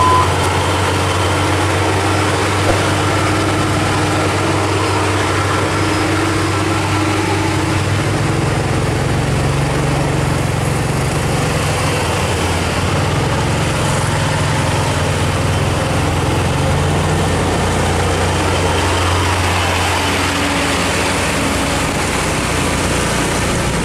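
Diesel engine of a heavily loaded Hino 500 coal truck running steadily on a steep uphill bend, a continuous low hum. Its low note shifts about eight seconds in.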